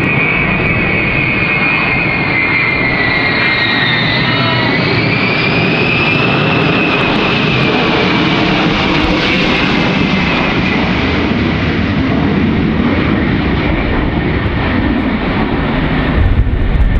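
Ilyushin Il-76 four-engine turbofan jet passing low, a steady loud roar with a high whine that dips in pitch about four seconds in, rises again, then slowly fades.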